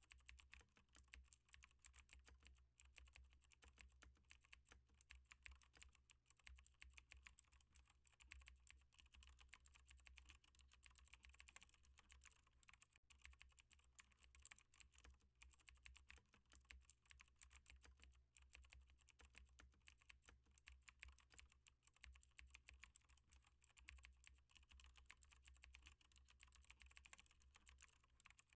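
Faint, continuous typing on a computer keyboard: a steady stream of rapid key clicks with only brief pauses, over a low steady hum.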